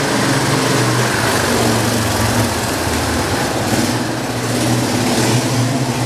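Small motorcycle riding past in a vaulted stone passage, its engine note holding steady.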